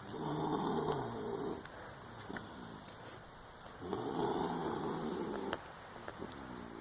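Snoring: two long snores about four seconds apart, with quieter breaths between them.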